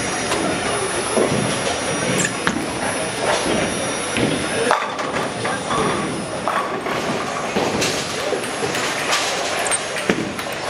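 Busy bowling alley: balls rumbling down the wooden lanes and pins clattering on several lanes, with repeated sharp knocks and voices chattering underneath.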